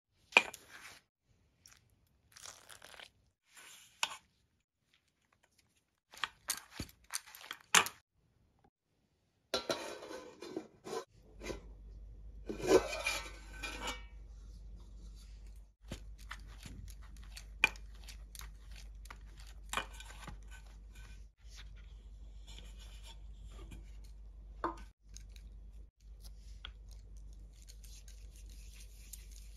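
A hand rubbing and scrunching flour in a steel bowl, in irregular bursts of gritty rubbing with a few sharp clicks against the metal. From about eleven seconds in, a steady low hum sits under occasional faint taps and rubs of dough being handled.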